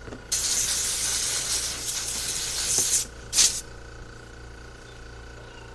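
A pressurized spray hissing into a carburetor's passages to clean them out: one long blast of about three seconds, then a short burst.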